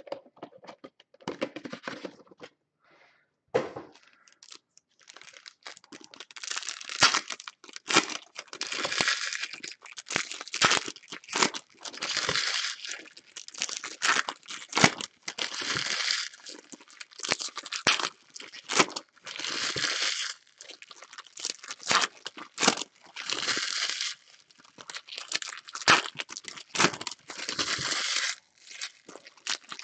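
Foil wrappers of 2020 Bowman Chrome baseball card packs being torn open and crinkled by hand, in a rapid run of crackling and sharp snaps after a short pause a few seconds in.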